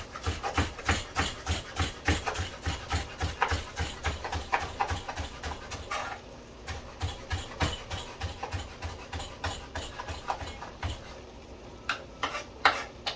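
Kitchen knife chopping shallots on a cutting board in quick, even strokes, about four a second, with a short pause about six seconds in and a few harder, separate chops near the end.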